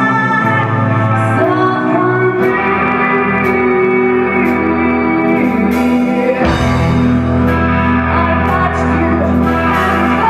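Rock band playing live: electric guitar chords over bass and drums with cymbal crashes, and a woman singing. The bass line and chord change about six and a half seconds in.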